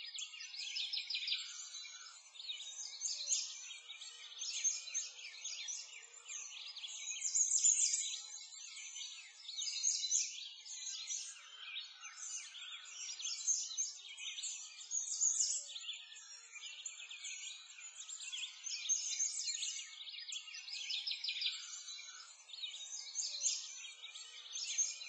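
A dense chorus of small birds chirping and twittering without pause, rising and falling in loudness every second or two.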